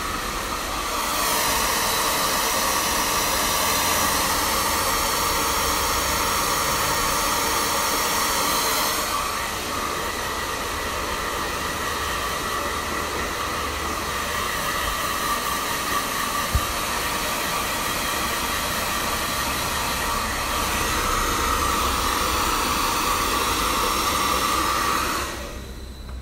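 Handheld hair dryer blowing steadily, its whoosh swelling and easing as it is moved around the head, with one brief click partway through. It is switched off about a second before the end.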